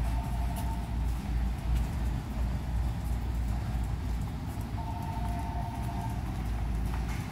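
Steady low rumble of indoor store background noise, with a faint held two-note tone about a second long near the start and again about five seconds in.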